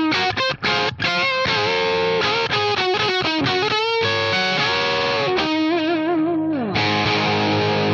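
Gibson Flying V electric guitar played straight into a Scarlett Scout 45-watt tube amp head (two 6L6 and three 12AX7 tubes), heard through a Hiwatt 4x12 cabinet with Vintage 30 speakers. It plays a lead phrase of quick single notes, then bent notes with vibrato and a falling slide, and ends on a ringing chord near the end.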